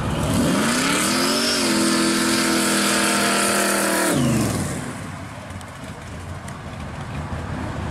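Supercharged engine of a hot-rod Chevy Vega wagon, its blower sticking up through the hood, revving up hard as the car launches, holding high revs for a few seconds, then dropping sharply about four seconds in. The engine sound then fades as the car pulls away.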